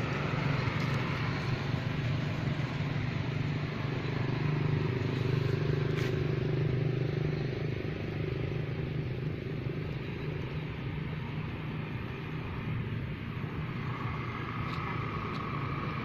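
A steady low engine hum, strongest for the first half and fading after about eight seconds, with one short click about six seconds in.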